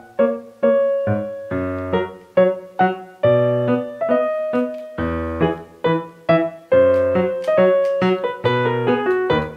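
Background music on a piano-toned keyboard: a bouncy melody of quick struck notes over chords and bass notes.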